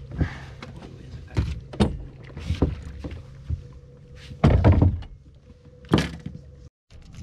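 Knocks and thumps of gear shifting about in a small fishing boat, about half a dozen, the loudest a cluster about four and a half seconds in, over the steady hum of an electric trolling motor.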